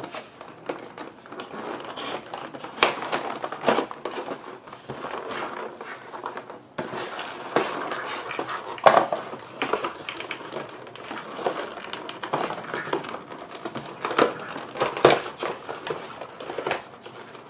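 Cardboard and paper packaging being handled and pulled apart: irregular rustling and crinkling, with scattered knocks and scrapes.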